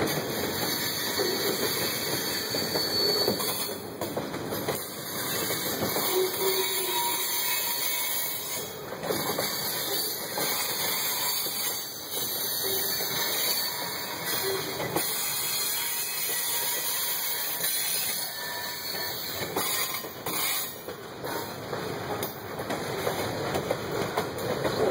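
A mixed freight train of boxcars, hoppers and gondolas rolling steadily past, its steel wheels rumbling on the rails with occasional clicks over the joints.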